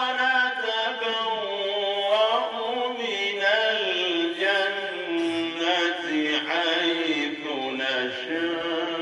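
A man chanting into a handheld microphone in a slow, drawn-out style, holding long notes whose pitch glides up and down.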